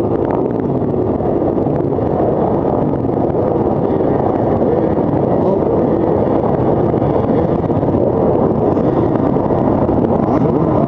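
A pack of motocross bikes running together at the start line, many engines idling while riders blip their throttles, so several pitches rise and fall over one another.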